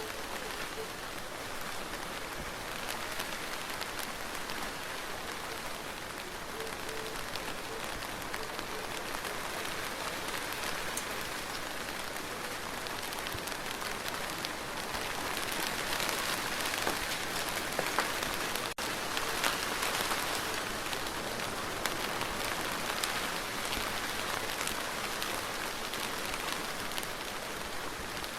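Steady rain falling, with individual drops pattering on a surface; it grows a little heavier about halfway through.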